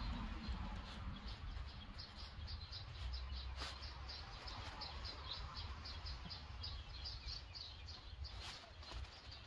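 A small bird chirping over and over, about four short chirps a second, over a low outdoor rumble. A sharp tap sounds twice, once in the middle and once near the end.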